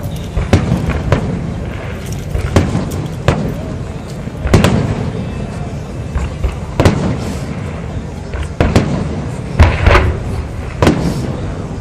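Fireworks display: aerial shells bursting in an irregular run of about a dozen sharp bangs and deep booms, each trailing a low rumble.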